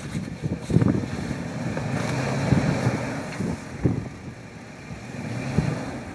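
Off-road vehicle engine running at low speed, swelling in level about two seconds in, with a few short knocks.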